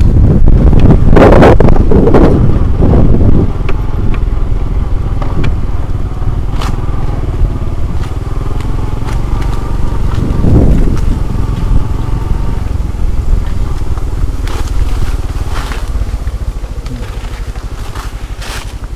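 Motorcycle engine running as it is ridden, under heavy wind rumble on the microphone, with louder gusts about a second in and again around the middle.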